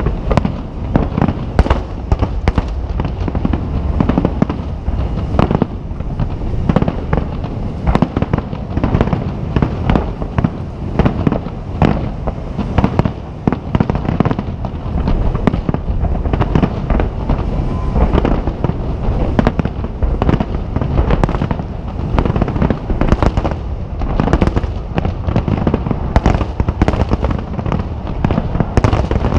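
Nagaoka aerial firework shells bursting in a dense, unbroken barrage, several bangs a second running together over a low rumble.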